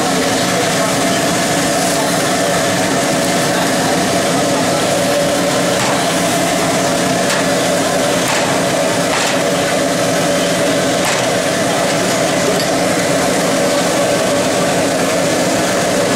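A few sharp knocks of a cleaver chopping frogs on a wooden chopping block, heard over a loud, steady din of machine hum and voices.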